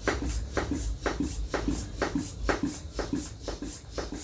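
Rhythmic strokes of a hand pump inflating a patched bicycle inner tube, about two strokes a second, to test it for further punctures.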